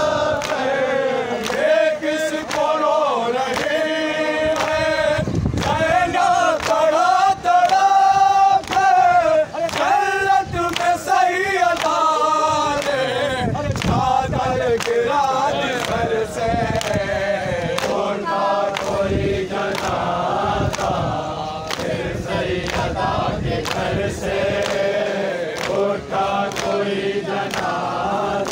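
A crowd of mourners chanting a noha, a lament, together in unison, over a steady beat of sharp slaps from matam, ritual chest-beating.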